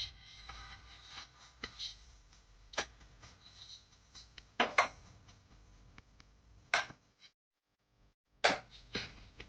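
A handful of sharp knocks and clatters, spaced a second or two apart, with faint rubbing between them; the sound drops out completely for about a second shortly before the last knocks.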